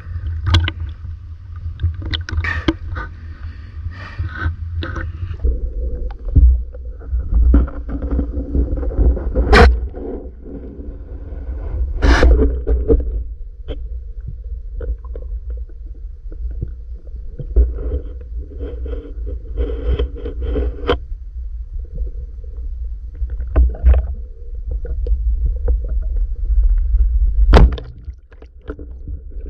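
Splashing water at the surface at first, then the low rumbling and muffled bubbling of water around an action camera on a freediving spearfisher underwater. Several sharp knocks stand out: two close together about ten and twelve seconds in, and others about twenty-four seconds in and near the end.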